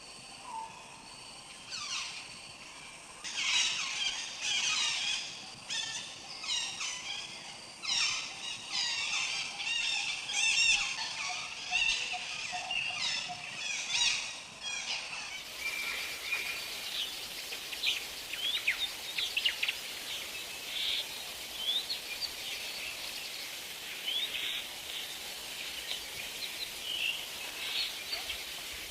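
Many birds calling at once, with dense chirps and trills. About halfway through the sound changes abruptly to a steady hiss with scattered short rising chirps.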